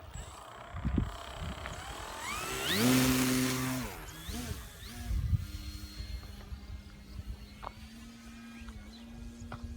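Electric motor and propeller of an MX2 EPP foam RC plane throttling up with a rising whine, loudest about three seconds in, wavering in pitch, then running at a steady low pitch. Wind rumbles on the microphone underneath.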